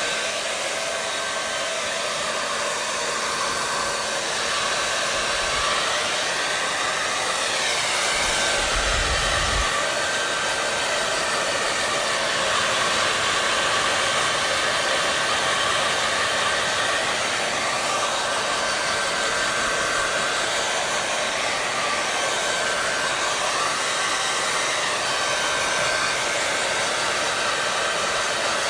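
Hair dryer running steadily: an even rush of blown air with a faint steady whine.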